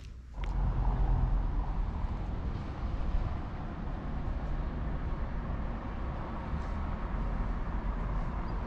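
Steady outdoor street ambience with a low rumble, starting suddenly just after the beginning.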